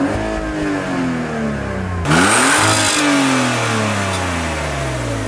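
Car engine revved with no load, twice: the pitch climbs quickly and then sinks slowly back toward idle. The second rev, about two seconds in, is sharper and louder.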